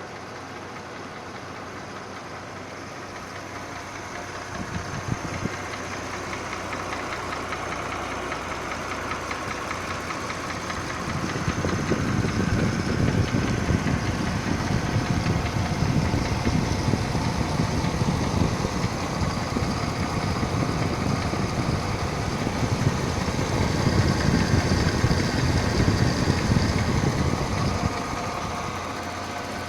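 Mercedes-Benz GLK 350's 3.5-litre V6 petrol engine running with a clattering, clacking noise. It grows louder and heavier about eleven seconds in and eases back shortly before the end.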